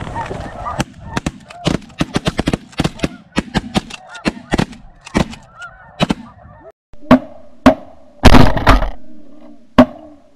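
Snow goose calls with shotgun fire at the flock: many quick shots in the first half, then a few much louder, closer 12-gauge shotgun blasts in the second half.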